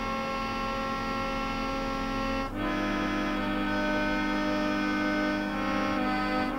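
Background music of slow, held chords, with one chord change about two and a half seconds in.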